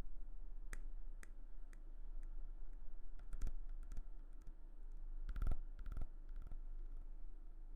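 Irregular soft clicks and taps, a few close together about five and a half seconds in, over a steady low hum.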